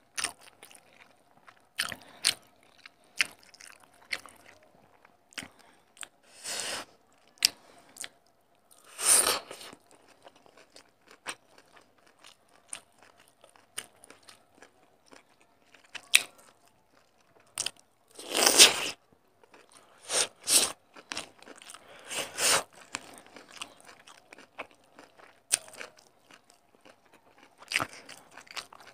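Close-up eating sounds of a person chewing and biting into chicken curry and rice eaten by hand. Irregular wet clicks and crunches run throughout, with a few longer, louder bites about a third of the way in and again past halfway.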